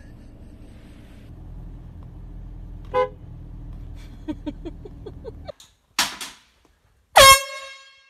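A low steady rumble with a short horn honk about three seconds in, then, after a cut, a brief hiss and a loud air horn blast near the end that dips slightly in pitch and fades out.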